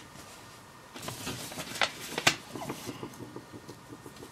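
Light handling noise: soft rustling and scratching with a few small clicks and taps, the sharpest two a little under two seconds in.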